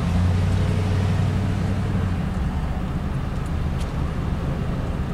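Steady engine and road rumble of a moving car, heard from inside its cabin, with a low drone for the first two seconds or so.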